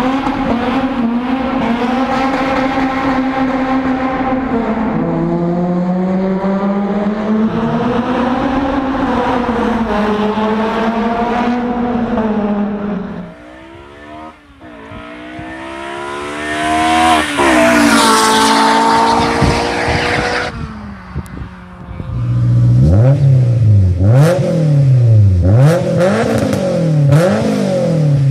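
Honda S2000 inline-four engines heard through aftermarket exhausts in three clips. First, one with an Amuse exhaust runs steadily, its pitch stepping down and rising again. Then a car approaches at high revs, loud and climbing in pitch, and passes. Last, one with a Skunk2 Megapower exhaust on a cold engine is revved in short blips, about one a second.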